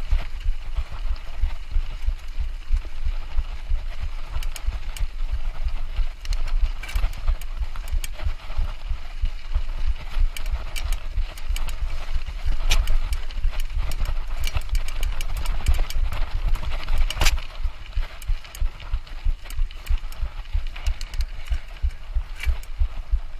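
Mountain bike ridden over rough trail: a continuous rumble of jolts and bumps, with frequent rattling clicks.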